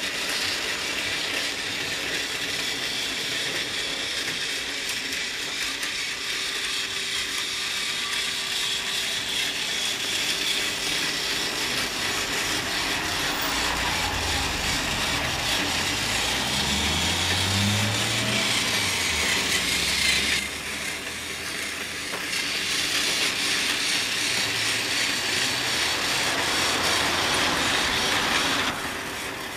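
A battery-powered Tomy TrackMaster toy locomotive running along plastic track pulling coaches: its small electric motor and gears whir steadily. A low rumble joins for a few seconds in the middle, and the whir changes abruptly twice at cuts.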